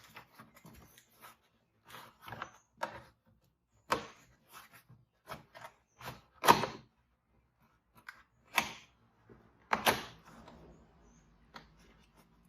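Irregular clicks, taps and short scrapes of a screwdriver working an edge of material back under plastic trim, with the loudest knocks a little past the middle and again later.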